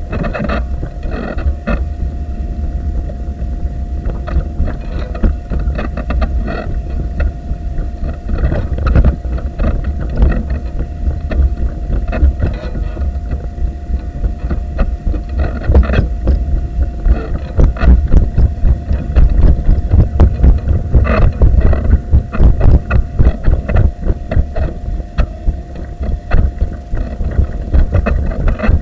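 Wheelchair rolling over paving stones, heard through a camera mounted on the chair: a constant low rumble with frequent rattles and knocks, and a thin steady whine underneath.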